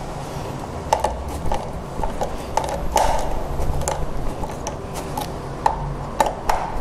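Screwdriver driving a screw to fasten a stand foot onto a flat-screen TV: irregular small clicks and scrapes, a few each second.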